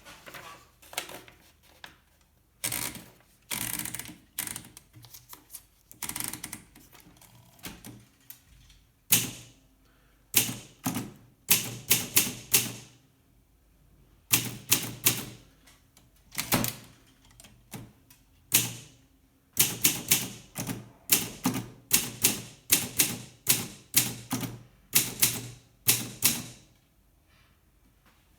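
Olympia SM2 de Luxe manual portable typewriter being typed on: sharp key strikes come in quick runs separated by short pauses, sparser in the first few seconds and then in dense runs.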